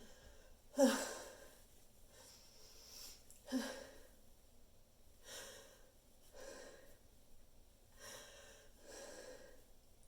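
A person's sneeze build-up: two sharp voiced gasps, about a second in and again near four seconds, then four slow, heavy, wheezy breaths with no sneeze yet released.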